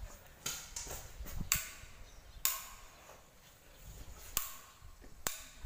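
Five sharp clicks and knocks at irregular spacing, some followed by a brief rustle of noise; the last is a thin, sharp click.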